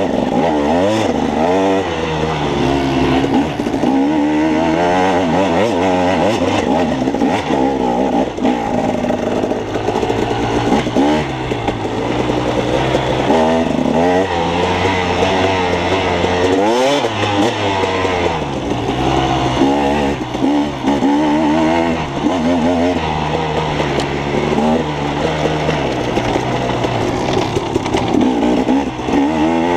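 On-board sound of a KTM off-road dirt bike's engine, revving up and down over and over as the throttle is worked along a trail.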